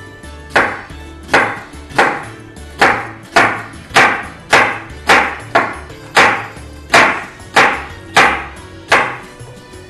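Chef's knife cutting through an onion onto a wooden cutting board, about fifteen crisp cuts in an uneven rhythm as the onion is minced.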